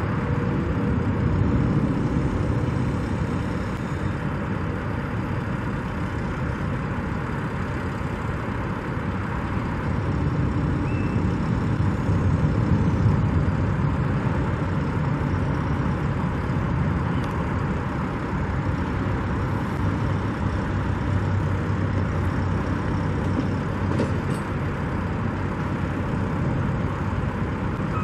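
Steady rumble of motor traffic, with trucks and engines humming.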